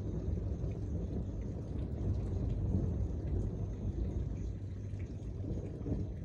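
Thunder rumbling low and continuously through a rainstorm, with rain falling and a few faint drop ticks.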